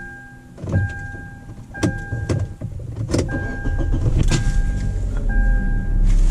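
A car's electronic warning chime sounds as a steady tone in stretches, broken by several sharp clicks and handling noise as the driver fastens her seatbelt. A low steady rumble grows louder from about two-thirds of the way in.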